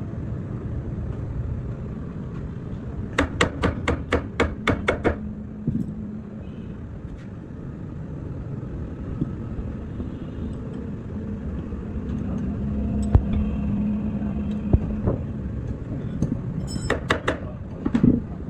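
Hammer blows on metal: a quick run of about nine strikes, roughly five a second, about three seconds in, and a few more near the end, over a low workshop rumble.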